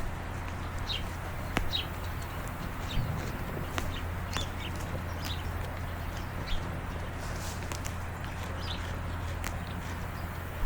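Small birds chirping in repeated short, falling notes, over a steady low hum and a few scattered clicks.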